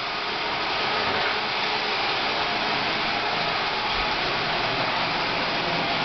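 Roomba robot vacuum running on a hardwood floor, a steady even whir of its motor and brushes.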